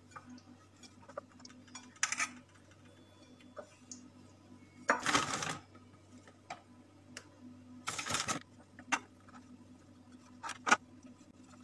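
Handling sounds from coating mackerel in tapioca flour: a few short crinkling rustles from the plastic flour bag as it is lifted and tipped over the plate, and light scrapes and dabs of fish and utensil on the plate.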